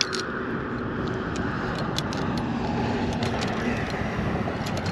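Light metallic clicks and clinks from an Alabama rig's wire arms, swivels and jigheads being handled, scattered over a steady background rush.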